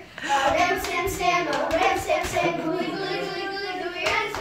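A group of children singing together, with hand claps in among the singing.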